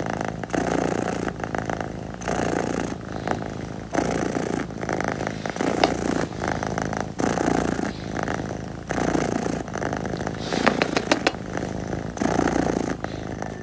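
Domestic cat purring close to the microphone: a steady low rumble that swells and fades about once a second with its breathing.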